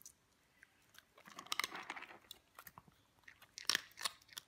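Shih tzus chewing and crunching food, in irregular crunches with a denser run about a second and a half in and a few sharp crunches near the end.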